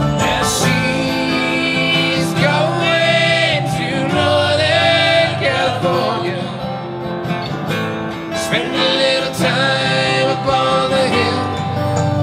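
Bluegrass string band playing with singing: plucked acoustic strings such as banjo and guitar over upright bass, with a lead voice.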